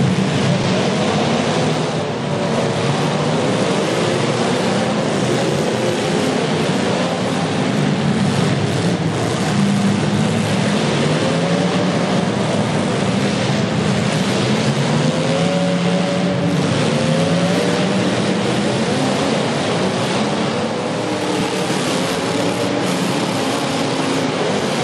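Demolition derby cars' engines running and revving hard together, their pitches rising and falling over each other in a dense, loud din.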